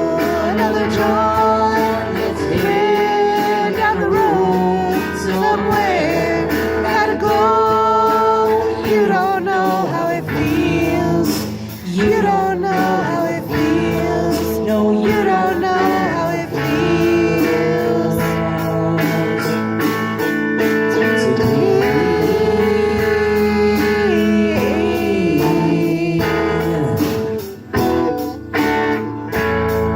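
A rock band playing an instrumental break with guitars and drums, and a lead melody line bending in pitch over the top.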